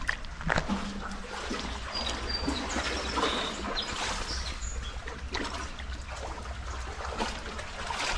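Creek water trickling and splashing, with scattered small splashes.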